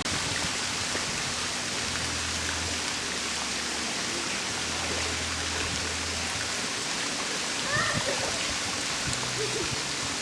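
Steady rushing noise, with a low hum that comes and goes and faint voices near eight seconds in.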